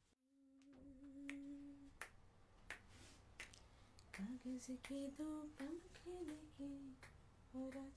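A voice humming softly: one held note, then from about four seconds in a slow melody that steps up and down. Sharp clicks sound at intervals through it, something like finger snaps.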